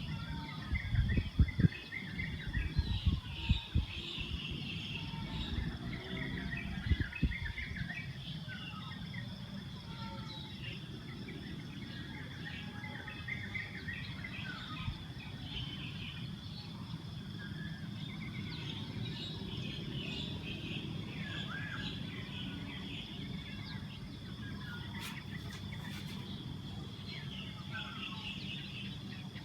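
Outdoor ambience of many birds chirping and calling, with a steady high drone and a low rumble underneath; a few low thumps in the first several seconds.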